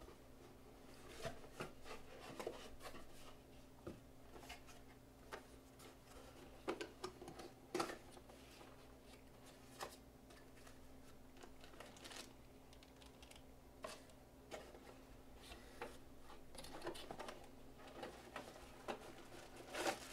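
Cardboard boxes and paper packaging being handled and opened: faint, irregular taps, scrapes and rustles, over a steady low hum.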